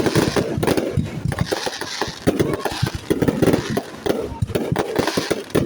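Fireworks going off in a dense, irregular string of bangs and crackles.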